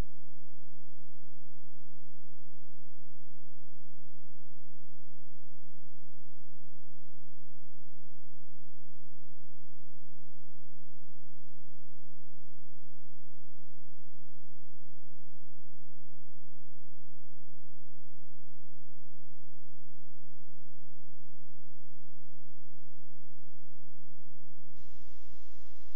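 Steady low hum with a few fainter higher tones above it, carried on the VHS tape's audio track under the silent warning screens. It holds one even pitch and level, then cuts off about a second before the end.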